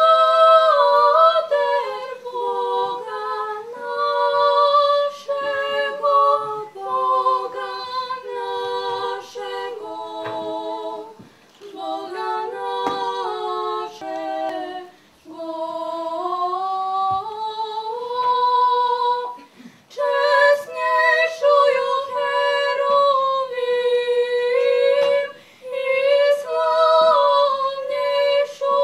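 Two women singing unaccompanied in two-part harmony, in long phrases broken by short pauses.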